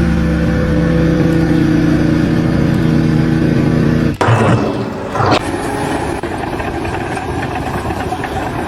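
An engine running at a steady pitch, cutting off abruptly about four seconds in; after it comes a noisier mix with a couple of short knocks.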